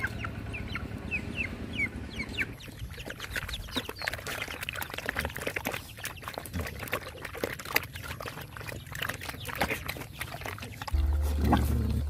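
Several dogs eating and lapping from bowls, a dense run of quick wet clicks, smacks and slurps. A chicken chirps in a fast run of short falling peeps at the start, and low music comes in near the end.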